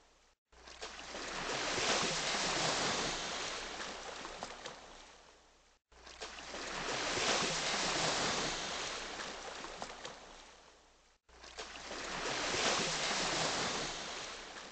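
Ocean surf washing in three times. Each wave swells over a second or two and fades away, with abrupt cuts to silence between them.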